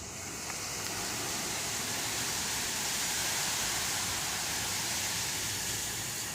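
Strong wind blowing, a steady rushing that builds slightly over the first few seconds and eases a little near the end.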